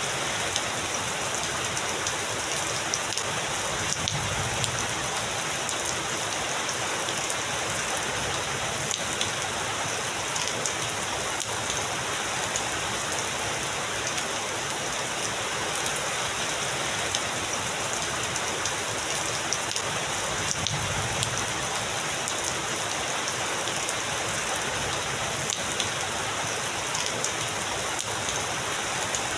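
Heavy rain falling steadily, an even dense hiss with scattered sharp drop ticks. Twice a faint low rumble of distant thunder rises under it.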